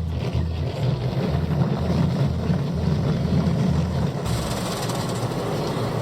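Steady low rumble of a car in motion under a wash of noise, which grows brighter about four seconds in.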